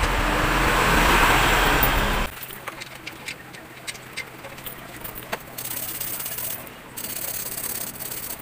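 Loud steady rumbling noise that cuts off abruptly about two seconds in, then light clicks and taps of hands and tools working among engine-bay parts.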